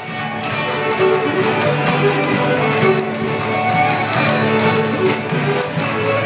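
A live jig tune on fiddle with acoustic guitar accompaniment, with the wooden feet of jigging puppets clattering on their boards in time.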